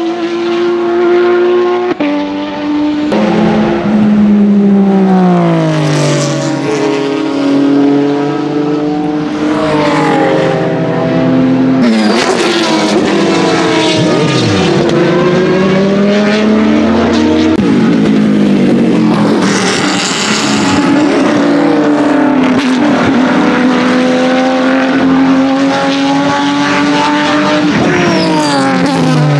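Race car engines at high revs, several cars in turn braking, blipping the throttle on downshifts and accelerating away as they pass, the engine pitch sweeping down and then climbing again each time. Among them a Porsche 996 GT3 RSR's flat-six.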